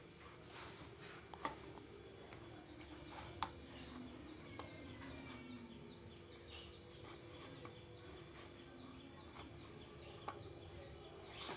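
Hands mixing and kneading palm-fruit pulp into wheat flour in a steel bowl: faint soft squishing and rustling, with a few sharp clicks against the bowl, over a faint steady hum.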